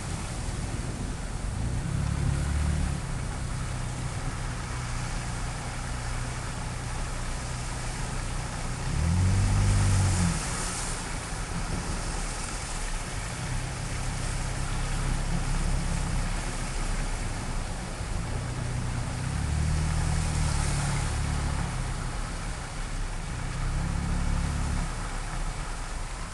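Motor vehicle engine running steadily, with a few louder swells of vehicles passing over the flooded, wet road, the loudest about ten seconds in.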